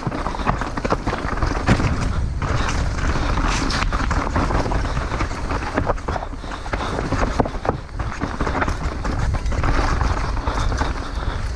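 A downhill mountain bike riding a rough trail: tyres roll over dirt and rocks while the chain and frame rattle with frequent sharp knocks. A steady rumble of wind buffets the microphone underneath.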